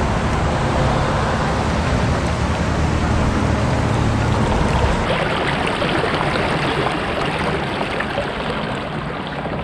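Water rushing and splashing along a kayak's hull as it is driven hard off the start line. A low rumble sits under it and cuts off suddenly about halfway through.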